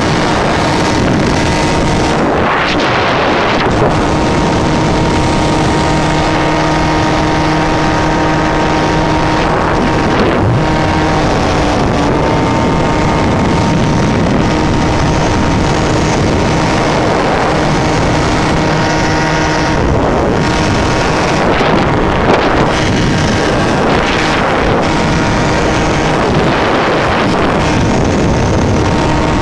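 Small 50cc two-stroke motorbike engine running under way at mostly steady high revs, with heavy wind noise buffeting the microphone.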